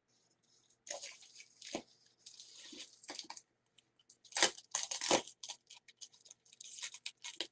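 A parcel box being opened by hand: cardboard and tape tearing and packing material crunching in irregular bursts, with two sharper rips in the middle.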